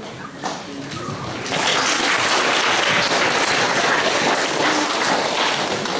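Assembly hall audience of students applauding: a round of clapping that starts about a second and a half in and holds steady.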